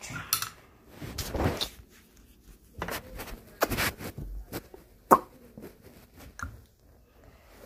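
Rustling, scraping and knocks of someone moving about close to a phone's microphone, with one sharp click about five seconds in.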